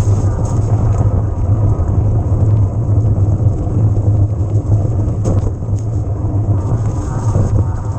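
Steady riding rumble from an electric mountain bike: wind on the camera microphone and tyres running over the trail, with a couple of sharp knocks a little past halfway.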